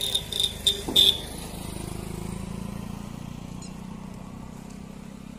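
A quick run of short beeps like a vehicle horn, then the steady low hum of a road vehicle that swells and fades over a few seconds.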